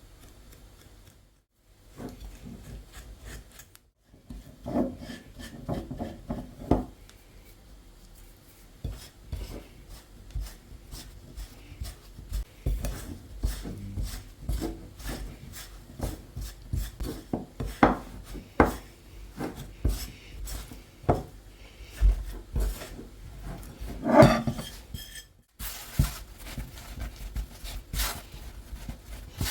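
Semolina and water being mixed into pasta dough in a bowl: irregular scraping and rubbing with light clinks of the utensil against the bowl.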